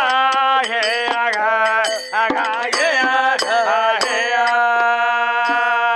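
Gee gee pada folk singing. Voices sing a bending, ornamented line, then hold one long steady note from about four seconds in. Frame-drum and small hand-cymbal strikes sound throughout.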